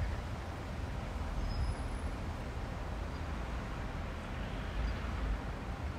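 Steady low outdoor background rumble with a faint hiss, and a single short click right at the start.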